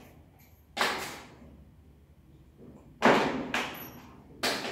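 Sharp knocks of a revolver and hand tools being handled and set down on a tabletop during disassembly: one about a second in, then three more close together in the last two seconds.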